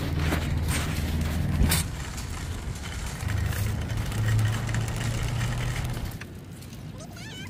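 Metal shopping cart rolling and rattling over parking-lot pavement, with a low rumble underneath and a few sharp jolts in the first two seconds. It goes quieter after about six seconds, when the cart comes to a stop.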